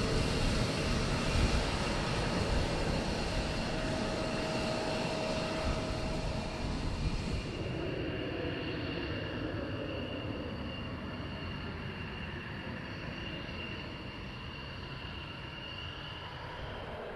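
F-16 fighter's single turbofan engine running: a dense jet rush with a steady high whine over it. The hissing top end drops away about eight seconds in, and the sound slowly gets quieter.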